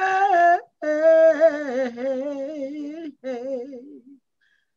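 A woman singing a gospel song unaccompanied, with a long held note that wavers with vibrato, then a shorter wavering phrase that trails off and stops shortly before the end.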